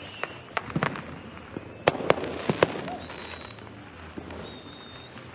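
Fireworks going off: a continuous background of distant bangs and crackle, with sharper close cracks clustered about two seconds in. Faint high whistles sound in the second half.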